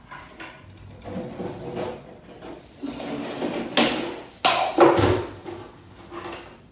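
Objects being handled: rustling and rattling with several sharp clattering knocks, the loudest about four and five seconds in.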